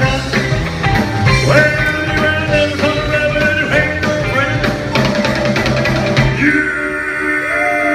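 Live rock and roll band playing loud, with electric guitars, bass and drums keeping a driving beat. About six seconds in the drums and bass drop out, leaving held notes ringing.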